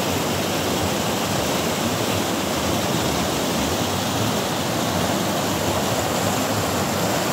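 Fast mountain river rushing over stones in white-water rapids: a steady, loud rushing of water.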